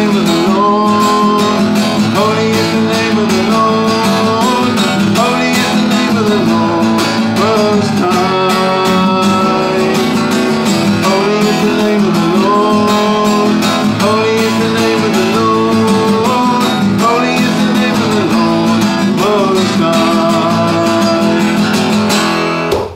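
Acoustic guitar strummed steadily, with a man's voice singing a worship song melody over it. The music stops abruptly at the very end.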